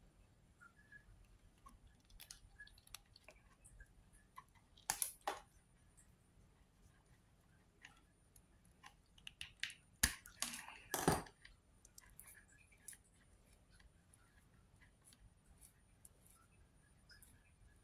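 Faint, scattered clicks and taps of hands working hook-up wire onto a small sound module, with sharper, louder clicks about five seconds in and a cluster around ten to eleven seconds in.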